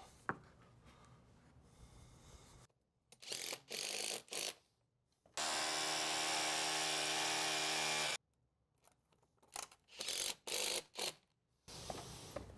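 A handheld power drill run in short trigger bursts, then held at a steady whir for about three seconds, then a few more short bursts.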